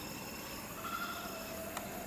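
Steady outdoor ambience of insects, crickets trilling, with a faint tone just under a second in and a single sharp click near the end.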